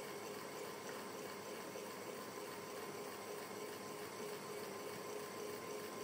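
Electric fan running steadily: a soft, continuous whir with a faint steady hum.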